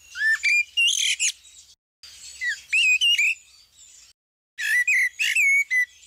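Eurasian blackbird singing: three short phrases of fluty whistled notes that glide up and down, mixed with higher squeaky twittering, with brief pauses between the phrases.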